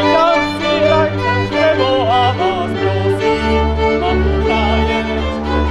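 String band music: a violin plays an ornamented, wavering melody over sustained bowed bass notes. The bass drops to a lower note about three seconds in.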